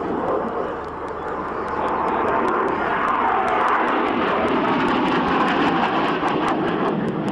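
Harrier GR7 jump jet's Rolls-Royce Pegasus engine running loud during a display. The noise grows louder about two seconds in and then holds steady.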